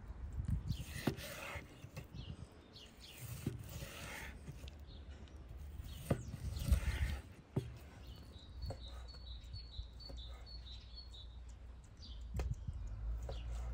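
Small birds chirping, with a quick trill of repeated high notes about eight seconds in. Three louder rustling swishes with clicks come over them, the loudest near the middle, above a low rumble.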